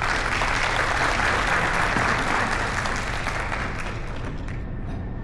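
Audience applauding, strongest in the first few seconds and tapering off near the end.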